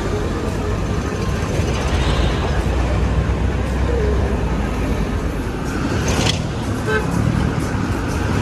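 City street traffic: a steady rumble of vehicle engines and tyres, with a short sharp hiss about six seconds in and a brief horn toot near seven seconds.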